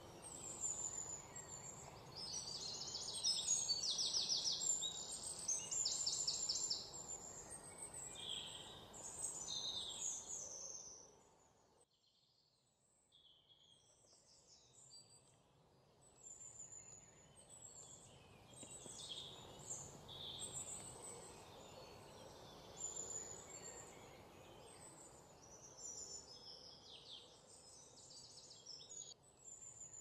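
Forest ambience of many birds chirping and singing, with a couple of fast trills, over a soft steady rush. It fades almost to nothing about twelve seconds in, then comes back quieter.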